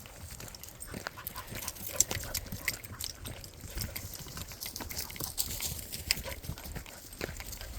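Dogs moving about in water, with irregular sharp splashes, the loudest about two seconds in.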